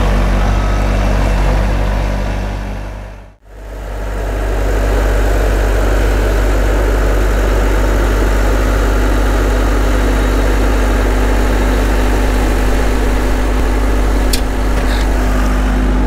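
Bobcat skid steer's diesel engine running at a steady idle. The sound drops out briefly about three and a half seconds in, then comes back.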